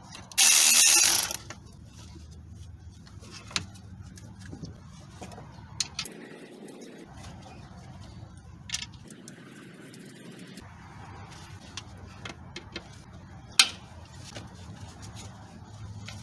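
A short burst of loud air hiss about half a second in, then sparse metallic clicks and knocks of hand tools working the 10 mm bracket bolts on the intake manifold.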